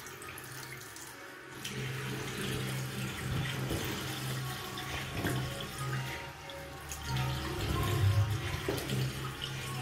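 Bathroom tap running a thin stream into a ceramic sink, the water splashing onto a soft-shell jacket's fabric held under it, with a low hum underneath. The splashing grows louder about a second and a half in.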